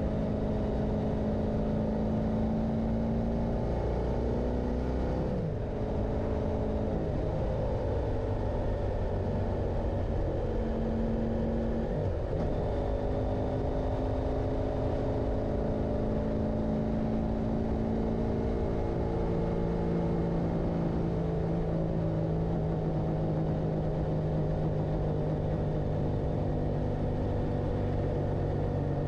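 Motorcycle engine running under way, its pitch changing in steps as the revs rise and fall, with brief drops in revs about five and twelve seconds in.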